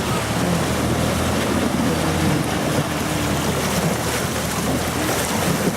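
Off-road vehicle engine running steadily as it drives up, under a steady rush of wind on the microphone.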